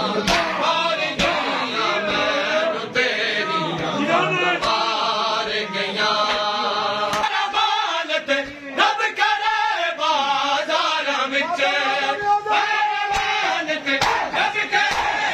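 Group of male voices chanting a noha, a Shia mourning lament, in unison, crossed by sharp slaps of hands striking chests in matam about every second.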